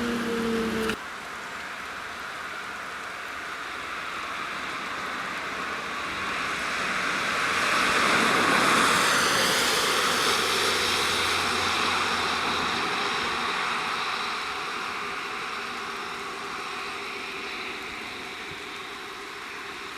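A civil-defence alarm siren winding down with a slowly falling tone, cut off abruptly about a second in. Then a vehicle approaches and drives past, its engine and tyre noise swelling to a peak around the middle and fading away.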